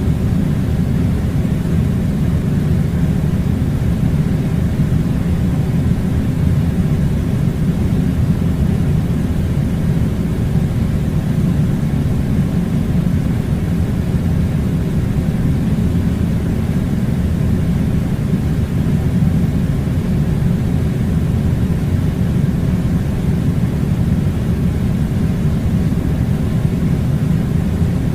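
Air conditioning unit running: a loud, steady, unchanging low rumbling noise.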